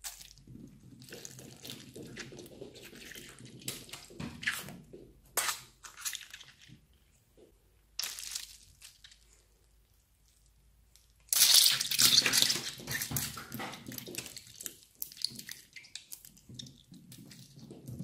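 Scissors snipping into a squishy water-bead stress toy, with small squishing and crackling sounds and sharp snips. About eleven seconds in comes the loudest part, a sudden rush of small wet rattling as the water beads spill out onto the slime, tailing off over a couple of seconds.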